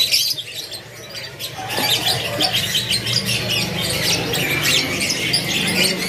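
Many caged canaries chirping and twittering at once, short high notes overlapping in quick succession. A low steady hum sits underneath and grows stronger about two seconds in.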